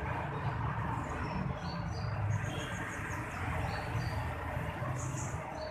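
Car engine running with its piston-type AC compressor engaged, giving a steady, uneven low rumbling growl. The growl comes from the compressor's worn bearings inside, one of the usual causes of a growling compressor.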